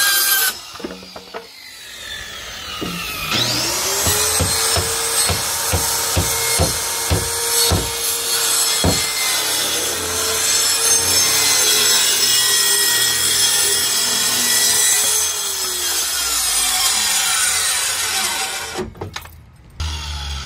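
Corded circular saw cutting plywood. A brief burst at the start winds down, then the saw spins up about three seconds in and runs steadily through the cut, with a few knocks along the way. It winds down and stops near the end.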